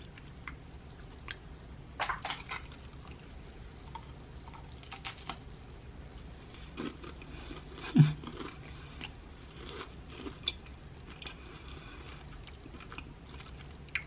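A person biting and chewing a small crisp wafer cone snack topped with chocolate, with scattered crunchy crackles and one short louder sound about eight seconds in.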